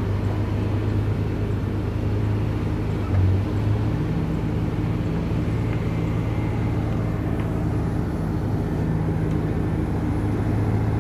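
Heavy construction machinery's diesel engine running steadily, a continuous low hum.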